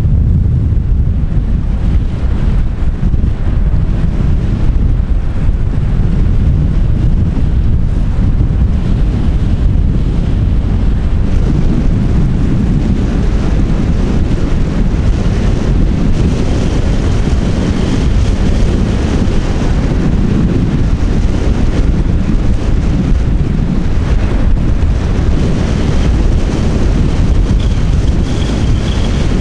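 Wind buffeting the microphone: a loud, steady low rumble. A faint high whine comes in twice in the second half.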